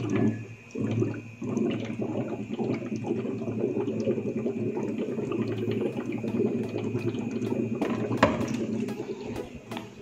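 Water running from a water-dispenser tap into a plastic cup, filling it with a steady rushing splash. A single sharp knock comes a little after eight seconds in, followed by a few light clicks.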